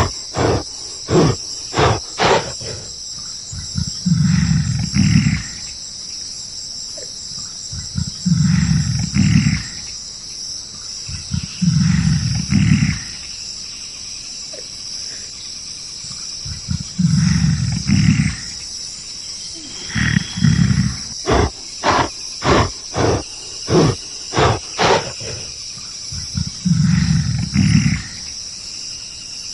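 A large animal calling with deep roars about a second long, roughly every four seconds, and two runs of short, sharp strokes, over a steady high insect chorus.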